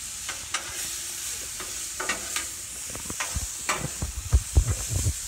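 Fried rice sizzling on a Blackstone flat-top griddle, with metal spatulas scraping and clacking on the steel cooktop as it is stirred. The clacks come thicker and louder in the second half.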